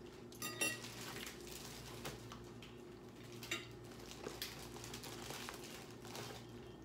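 Faint tableware and handling sounds: scattered light clicks of a fork against a plate and the crinkle of a plastic bread bag being handled, over a steady low hum.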